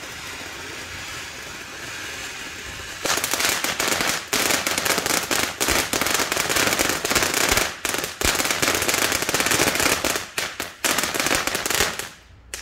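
Ground fountain firework spraying sparks: a steady hiss at first, then about three seconds in a loud, dense crackling that goes on until it dies out near the end.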